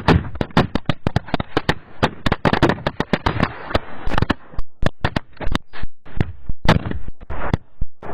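Firecrackers packed in a burning Ravan effigy going off in rapid, irregular succession: dozens of sharp bangs and pops, several a second, with a brief lull partway through and a few louder bangs near the end.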